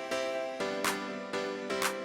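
Background music: pitched chords with a regular percussive beat, the chord changing about halfway through.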